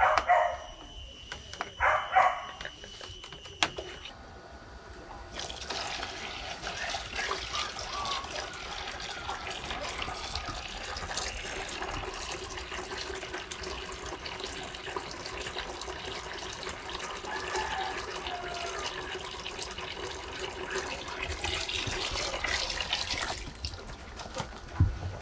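Water from a garden hose pouring into a basin, a steady rushing splash that starts about five seconds in and stops shortly before the end.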